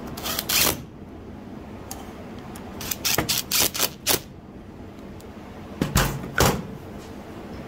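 Cordless drill-driver running down the top-cap screws on a Senco FramePro 701XP framing nailer in short bursts, with clattering knocks of the metal nailer being handled. A couple of heavier knocks come about six seconds in as the nailer is set down on the workbench.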